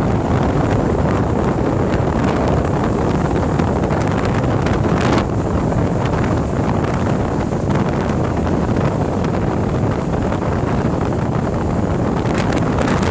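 Strong storm wind buffeting the microphone in steady, loud gusts, with the surf of a stormy sea beneath it.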